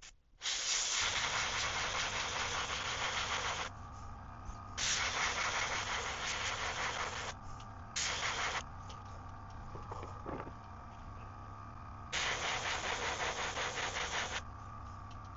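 Airbrush spraying paint in four separate hissing bursts, the first two long, a short one, then another long one near the end, over a steady low hum.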